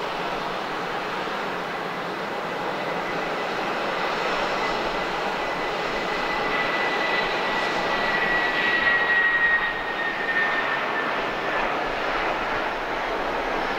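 Airbus A321-231's IAE V2500 turbofans running at low power on the ground: a steady jet rush with a thin high whine. The whine grows loudest and falls slightly in pitch about two-thirds of the way through.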